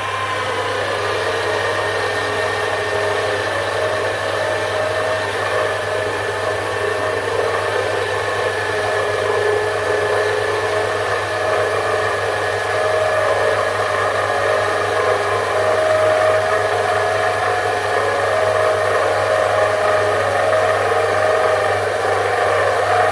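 Sherline benchtop lathe running steadily, its small motor humming and whining, while a brazed carbide-tipped cutter takes a fairly heavy turning cut in steel.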